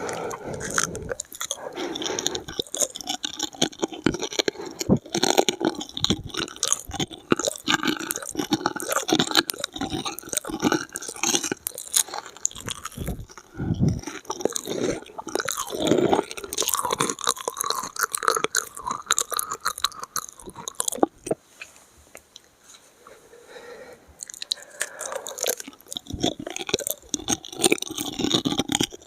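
Close-miked chewing of crunchy food, a dense run of irregular crunches and wet mouth clicks that eases off into a short lull about three quarters of the way through, then picks up again.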